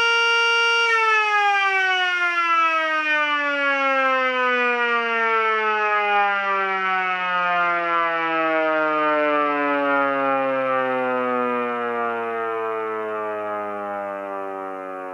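Mini Sterling Model M miniature siren, its 8-port side toward the microphone behind a cardboard baffle, holds a steady full-speed tone and then winds down from about a second in. Its pitch falls steadily and it grows quieter near the end.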